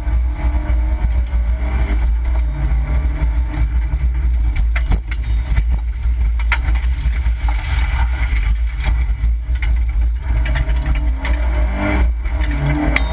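Opel Corsa B rally car's engine heard from inside the cabin at speed on a special stage, revs rising and falling as it is driven hard, over a heavy road and wind rumble, with a few sharp knocks from the car.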